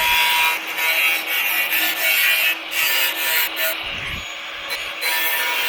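Power cutting tool running under load, cutting through rusted car-body sheet steel: a loud, steady grinding whine that eases a little in the middle and comes back to full load near the end.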